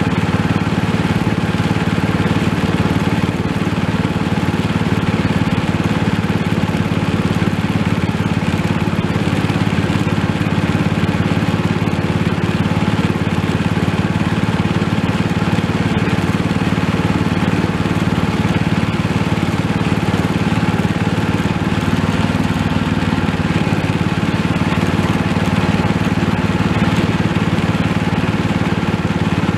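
A vehicle's engine running steadily at a constant speed while it is driven along, an even drone with no change in pitch.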